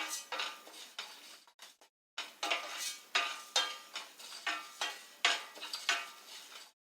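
Spatula scraping and stirring moong dal as it dry-roasts in a pan, in quick repeated strokes about two to three a second, with a short break a little after a second in.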